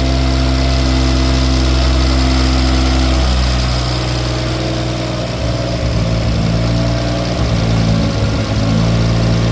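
BMW B58 turbocharged 3.0-litre inline-six idling, steady at first; about four seconds in the idle turns rough and uneven for a few seconds before it settles again. It is still misfiring, which the owner puts down to overfueling fouling the spark plugs.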